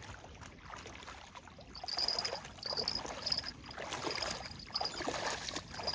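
Shallow water sloshing and splashing around the legs of a person wading. From about two seconds in, a short high chirp repeats at a steady pace.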